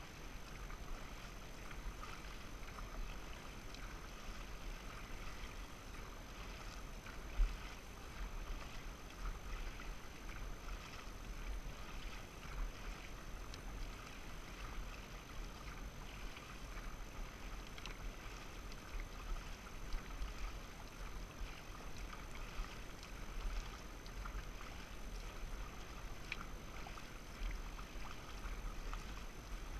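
Dragon boat paddles splashing and pulling through the water, stroke after stroke, over a steady low rumble, with one louder thump about seven seconds in.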